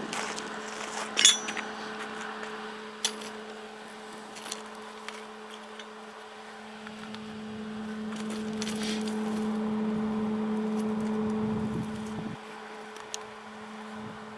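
A steady mechanical hum that grows louder for a few seconds in the second half and then drops off abruptly, with a few sharp metallic clinks, the loudest about a second in.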